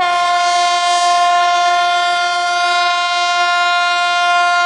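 Air horn of a TU6A narrow-gauge diesel locomotive sounding one long, loud, steady blast of a single pitch, starting abruptly and lasting nearly five seconds.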